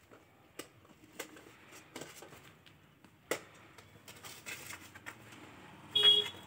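Handling noise from a fluffy Spitz puppy held right against a phone: scattered clicks and rustles of fur brushing the microphone. Near the end comes a brief, loud, high-pitched squeak.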